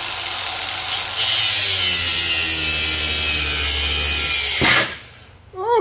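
Ryobi angle grinder running under load, grinding away the old rubber of a sway bar bush and making it smoke. Its whine drops slightly in pitch, then it stops abruptly near the end.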